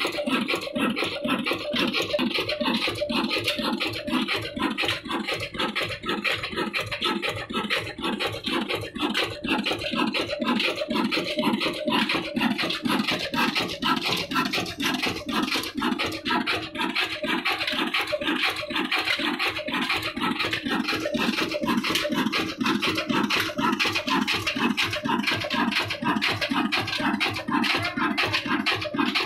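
Old Ruston Hornsby 35 HP diesel engine running steadily, belted to a flour mill, with an even, regular beat from its working strokes.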